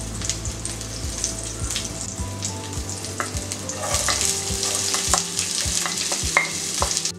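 Hot oil sizzling and crackling in a frying pan with a tempering of mustard seeds, urad dal and green chillies. About four seconds in, chopped red onion is tipped into the oil and the sizzle grows louder, then it cuts off suddenly near the end.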